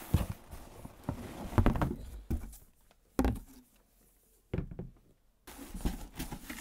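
Cardboard shipping box being handled: flaps rustling and several knocks and thuds about a second and a half apart as things are moved in and out of it.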